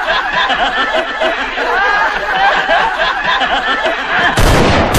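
A group of men laughing loudly together in overlapping chortles. Near the end, a sudden gunshot from a revolver cuts in, with a long ringing echo.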